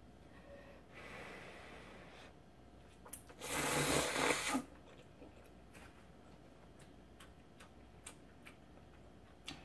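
A person slurping ramyeon noodles: a softer draw about a second in, then one loud slurp lasting about a second, followed by quiet chewing with small mouth clicks.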